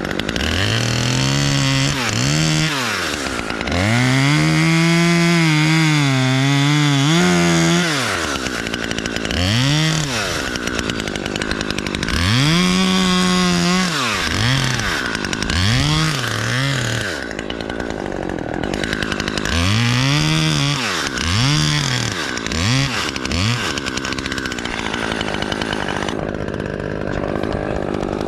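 Gas chainsaw cutting through the trunk of a white fir to top the tree: the engine is throttled up and let back down over and over, held at high revs for a few seconds at a time while in the cut. The revving stops a few seconds before the end.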